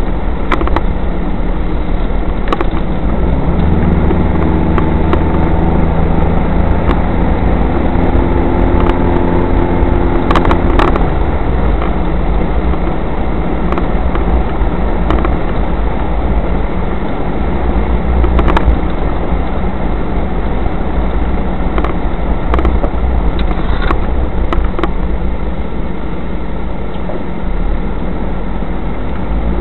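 Car engine and tyre rumble heard from inside the cabin on a dashboard camera, steady throughout. The engine note stands out more clearly for several seconds from about four seconds in. There are occasional short sharp clicks.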